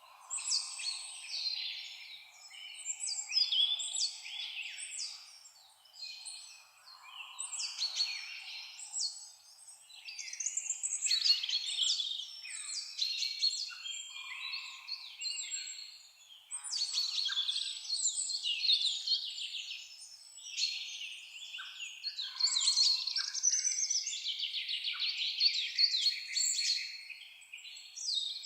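Several songbirds singing at once: a dense chorus of high chirps, trills and whistled phrases, with no low sounds beneath it.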